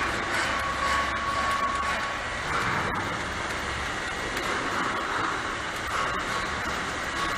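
Rotary external ampoule washing machine running: a steady mechanical hiss and whirr with a few faint clicks.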